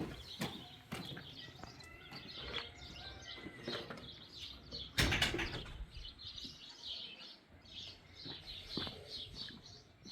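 Small birds chirping repeatedly in quick, high notes, with scattered clicks and knocks and one louder thump about halfway through.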